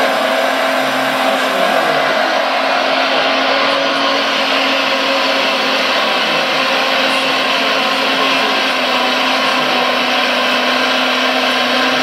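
Premacon 1:14.5 scale Liebherr R956 RC excavator working, digging and swinging its boom: a steady, even whir of the model's drive mixed with its sound module's imitation of the real machine's engine, with a constant hum underneath.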